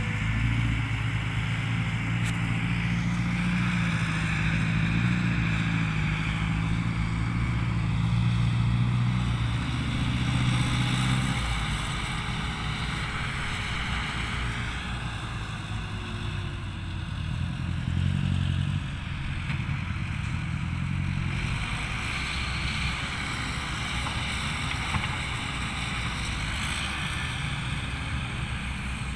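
Heavy diesel engines of earthmoving machinery running. A dump truck's engine runs strong and steady for about the first ten seconds, then a Caterpillar 312B hydraulic excavator's engine works, rising and falling in level as it digs and swings.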